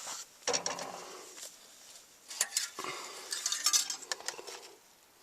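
Hand tools clinking on metal, with a ratchet wrench clicking in a few short runs.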